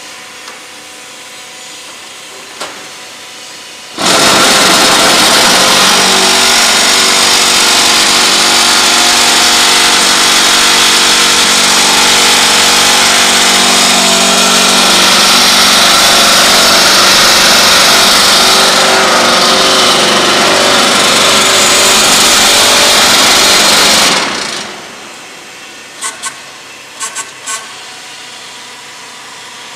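Small concrete block machine's electric vibration motors shaking the steel mould full of concrete mix, compacting it into blocks: a loud, steady mechanical noise with a low hum. It starts suddenly about four seconds in, runs for about twenty seconds, then winds down, and a few short clicks follow near the end.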